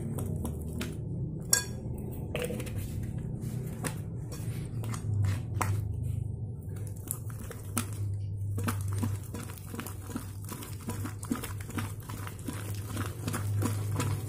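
Wet, foamy slime being squished and kneaded by hand in a glass bowl, making a stream of short sticky clicks and crackles, which come thicker and faster after about eight seconds. A steady low hum runs underneath.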